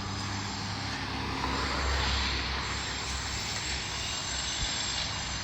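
A steady low engine drone under an even wash of outdoor noise, its low hum dropping in pitch about a second in.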